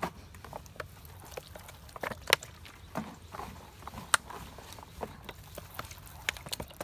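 A hand squeezing and stirring a moistened mix of broken bread crusts in a plastic basin: irregular soft crunches and rustles, with two sharper crackles about two and four seconds in.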